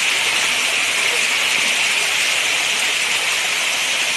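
Steady, even outdoor hiss of tropical forest ambience, brightest in a high band, with no break.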